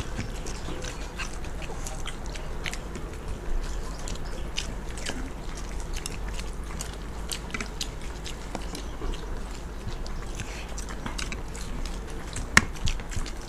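People eating chicken biryani with their hands: chewing and biting with many small scattered clicks, and one sharper, louder click near the end.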